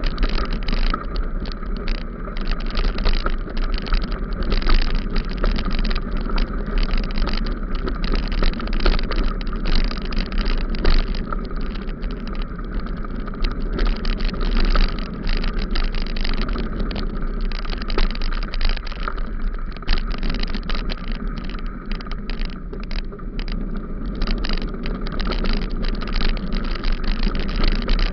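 Steady road noise and rattle of a bicycle riding over a rough dirt road, with wind rumbling on the microphone and many small irregular jolts from the bumps.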